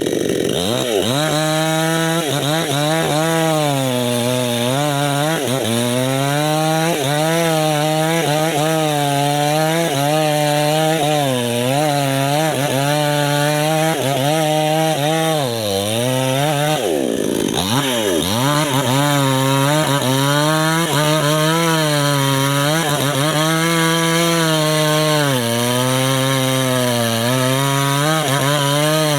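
Two-stroke chainsaw running at high speed while cutting jengkol wood, its pitch dipping and recovering about once a second as the engine bogs under the load of the cut. About 17 seconds in it drops briefly toward idle, then revs back up and goes on cutting.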